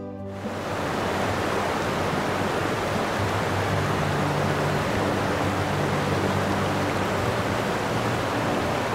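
Steady rushing of sea water, a continuous even hiss like surf, starting a moment in, with faint background music underneath.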